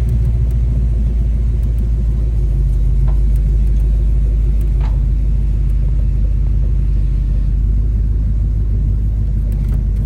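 Holden VK Commodore V8 driving on the road: a steady, loud low rumble of engine and road noise.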